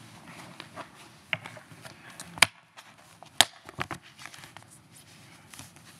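Quiet pause filled with scattered small rustles and knocks, like handling at a lectern or people shifting, with two sharp clicks about two and a half and three and a half seconds in.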